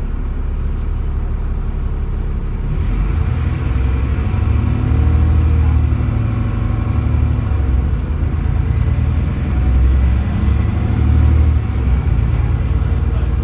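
Diesel engine of a Dennis Trident double-decker bus with ALX400 body, heard from the upper deck while the bus accelerates. The engine note grows louder about three seconds in and rises and falls in pitch. A thin high whine comes in over it through the middle.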